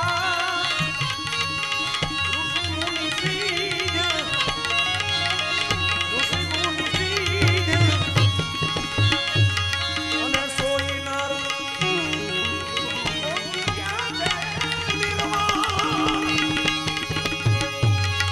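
Gujarati devotional bhajan music: tabla playing a steady beat under a wavering melody line.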